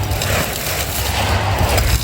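A dry, hard crumbling-texture shape being crushed and crumbled by hand, giving a continuous dense crunching and crackling.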